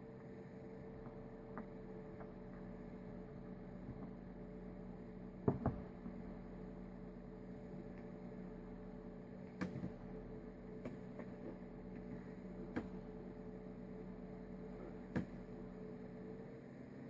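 A steady low hum, with a few scattered light knocks and clicks.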